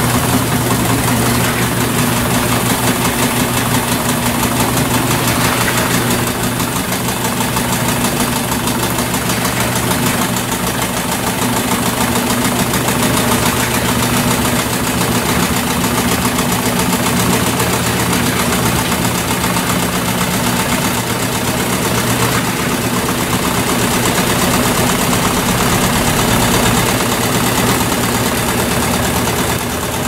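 Brastemp BWP11 top-loading washing machine in its spin cycle: the motor and spinning basket make a steady whirring hum.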